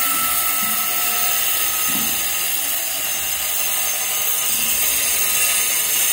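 Handheld angle grinder running steadily as it cuts, a continuous whine over dense grinding noise.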